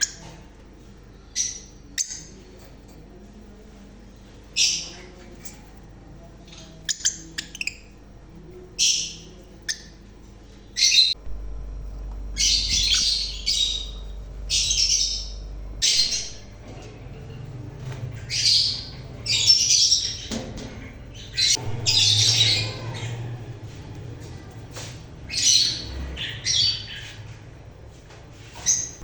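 Small caged parrots squawking: short, high-pitched harsh calls, scattered at first and coming thick and fast from about eleven seconds in.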